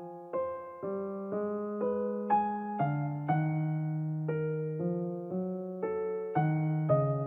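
Background music: gentle piano playing a steady run of notes and chords, a new one about twice a second.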